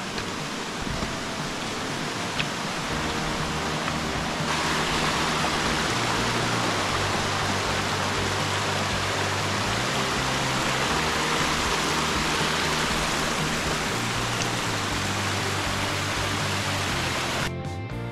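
Rushing mountain stream or waterfall: a steady hiss of water that jumps louder about four seconds in and cuts off suddenly near the end, with background music underneath.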